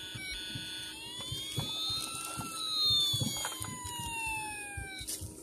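Toy fire truck's electronic siren giving one slow wail. The pitch rises for about a second and a half, then falls slowly until near the end.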